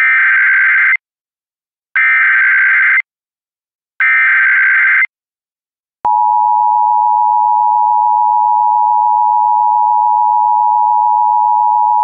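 Emergency Alert System SAME header: three one-second bursts of digital data tones about two seconds apart, then the steady two-tone EAS attention signal (853 and 960 Hz) starting about six seconds in.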